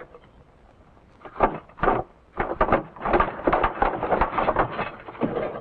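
Irregular clattering and knocking as things are moved about inside a refrigerator: a quick, uneven run of strikes starting about a second and a half in.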